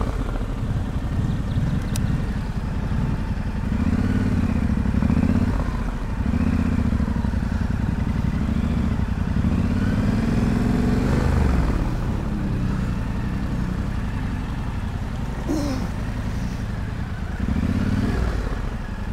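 Motorcycle engine idling with a steady low rumble that swells louder several times, over the even rush of a shallow stream.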